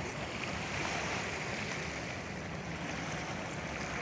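Small waves washing against the rocky shoreline, a steady rushing.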